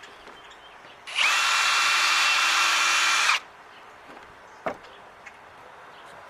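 Power drill running in a single burst of about two seconds: a steady motor whine after a quick spin-up, cutting off abruptly. A single sharp click follows about a second later.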